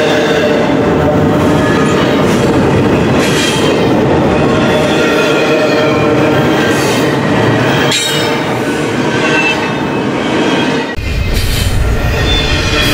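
Double-stack intermodal freight cars of a long train rolling past close by: a steady heavy rolling of steel wheels on rail, with thin high wheel squeal wavering over it. About eleven seconds in, the sound changes abruptly to a deeper, heavier rumble.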